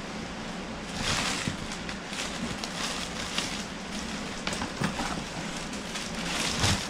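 Plastic packaging crinkling and rustling in several bursts as items are handled and taken out of a cardboard box, the loudest burst near the end.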